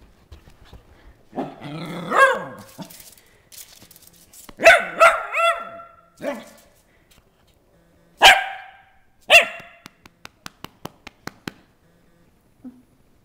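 Small black shaggy dog barking in play: a long wavering call, then a quick string of sharp barks, and two single barks a second apart. Near the end comes a fast run of light clicks, its claws on the tile floor.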